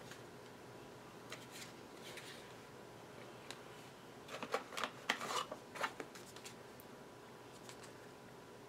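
Faint rustling and scratching of small packaging being handled and opened, in a few short bursts, the busiest about four and a half to six seconds in, over quiet room tone.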